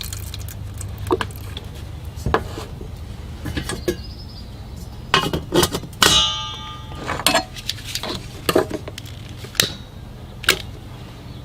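Metal stove parts being handled: scattered clinks and knocks, with one ringing metallic clang about six seconds in, over a steady low hum.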